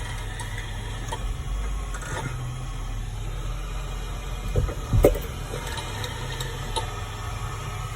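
Range Rover L405 front suspension heard through a diagnostic sensor while driving: steady low road rumble with a few sharp knocks. The loudest is a cluster of knocks about four and a half to five seconds in. These are the front-suspension knock being traced.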